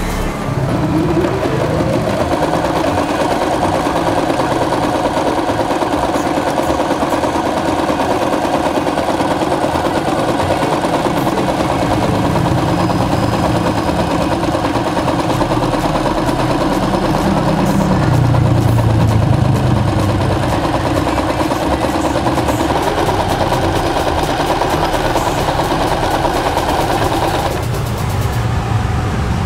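Riccar 2200 computerised sewing machine sewing through four layers, two of canvas and two of leather. The motor speeds up with a rising whine just after the start, runs steadily with rapid, even needle strokes, and stops about two seconds before the end.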